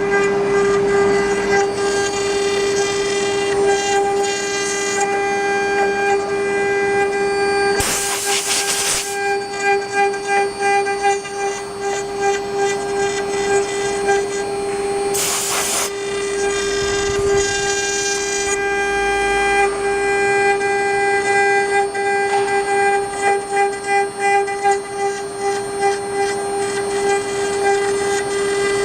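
Spindle motor of a CNC wood engraving lathe running with a steady, high, even whine. Two short hissing bursts cut in, about eight and fifteen seconds in.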